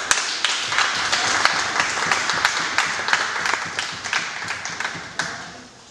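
Audience applauding, a dense patter of clapping that slowly fades away over the last couple of seconds.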